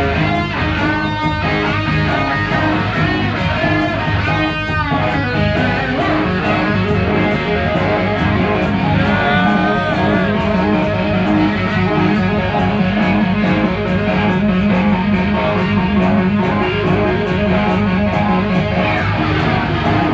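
Hard rock band playing live, recorded loud. A lead electric guitar on an SG-style guitar plays bent, gliding notes over bass guitar and a steady drum beat.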